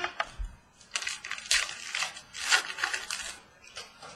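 Trading cards and their packaging being handled: a run of crisp clicks and rustles as cards are flicked through, busiest from about a second in until shortly before the end.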